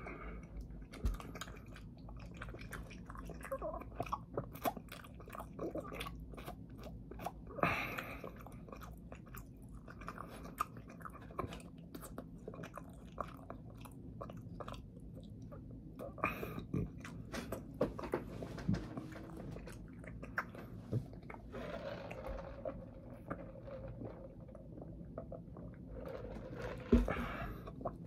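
Close-up chewing and mouth sounds of someone eating, with many small wet clicks and smacks and a few short murmurs.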